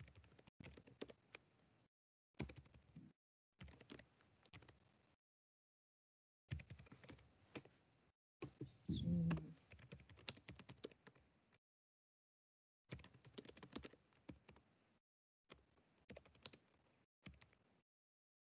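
Computer keyboard typing in short runs of key clicks, broken by stretches of dead silence where the sound cuts off abruptly. There is one louder low-pitched sound about nine seconds in.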